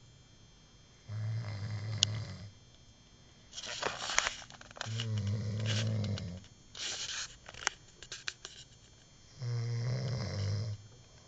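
A man snoring in his sleep: three low, rattling snores about four seconds apart, with breathy exhales and a few small clicks between them.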